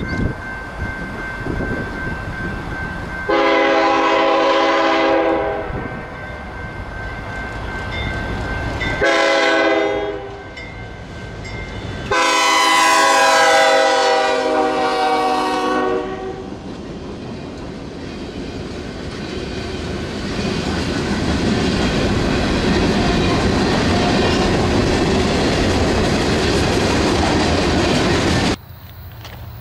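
Horn of a BNSF diesel freight locomotive sounding three blasts as the train approaches: a long one, a short one, then a longer one as the locomotive reaches and passes. After the horn, the freight cars rumble and clack steadily over the rail joints as they roll by.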